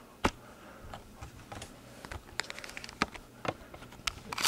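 Scattered light clicks and knocks at irregular intervals over a faint steady low hum, with the loudest knock at the very end.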